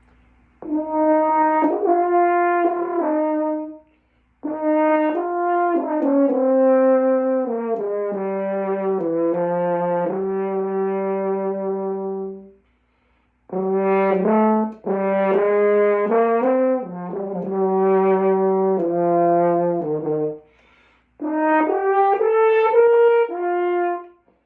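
Brass instrument played as a warm-up, in four phrases of stepped notes with short breaks between them. Several phrases step down to low notes that are held for a second or two.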